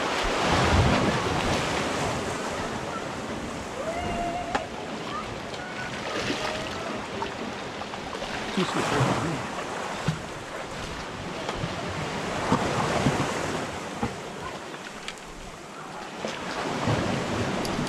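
Sea waves surging and washing over shoreline rocks, the rush of water swelling and ebbing every few seconds, with wind buffeting the microphone.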